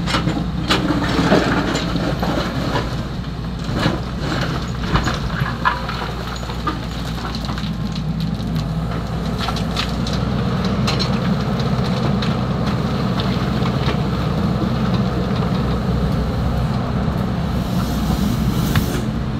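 XCMG 75 excavator's diesel engine running steadily under load, with stones and gravel clattering and knocking during the first few seconds and again about halfway through as sand-and-gravel fill is dug and loaded.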